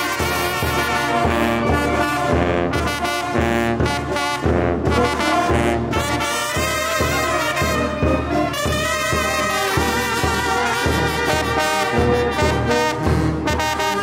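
Small brass band of young players (trumpets, trombone, alto and baritone horns) playing a Guerrero jarabe together, with a steady low beat under the melody.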